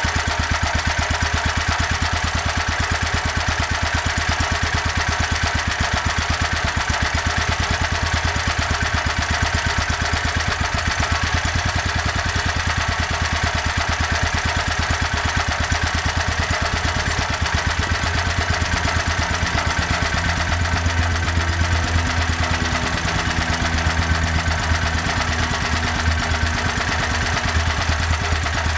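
Small portable generator engine running on HHO (hydrogen-oxygen gas from an electrolyzer), steady but not running well: it is in a very lean condition.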